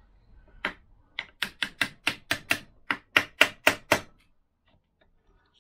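A hammer tapping a punch tool (a ceiling hole-cutter body) to drive a Viton crankshaft oil seal into a Vespa PX engine case: about a dozen quick, sharp taps, roughly four a second, which then stop.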